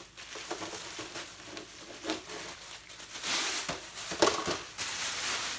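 Thin plastic wrapping crinkling and rustling as it is pulled off a pet pad, loudest about three to four seconds in.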